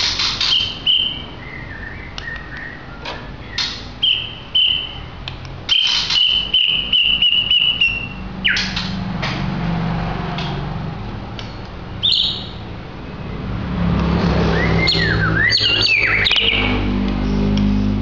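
White-rumped shama singing: a varied run of clear whistled notes, some held steady, mixed with sharp clicks, falling sweeps and a quick warbling flourish near the end. A low rumble swells underneath in the last few seconds.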